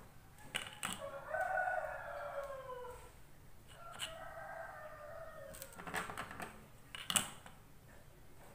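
A rooster crows twice, each crow about two seconds long and dropping in pitch at the end. Sharp knocks of a crinkle-cut knife against a cutting board come before and after the crows, the loudest near the end.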